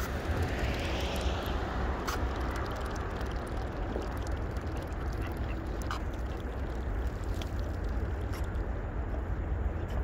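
Ducks quacking over a steady low rumble.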